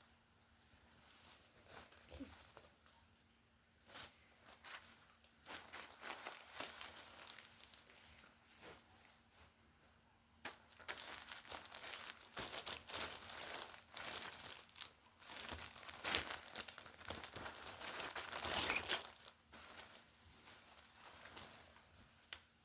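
Plastic clothing packaging being crinkled and torn open by hand: scattered rustles at first, then about halfway through a longer stretch of dense, busy crinkling that dies away near the end.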